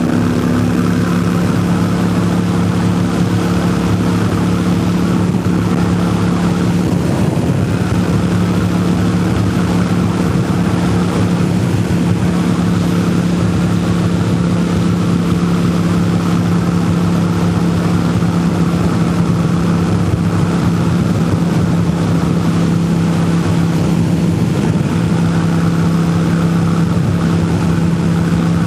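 Harley-Davidson Sportster 883's air-cooled V-twin running through Vance & Hines Short Shots exhaust on a Stage 1 tune, held at a steady highway cruising speed. The exhaust note stays even in pitch and loudness throughout.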